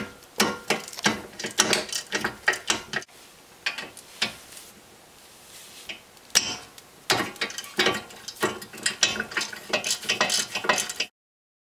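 Hand ratchet clicking in quick runs as a 16 mm socket backs out the front brake caliper carrier bolts, in two bouts with a quieter pause between them; the sound cuts off suddenly near the end.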